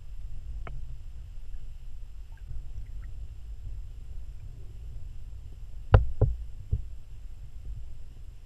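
Low, steady underwater rumble of moving water as picked up by a submerged camera, with a faint click under a second in. About six seconds in come three sharp knocks in quick succession, the loudest sounds here.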